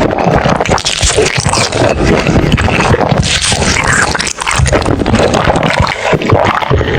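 Close-miked eating: wet chewing and squishing of fried chicken coated in cheese sauce, dense with small crackles.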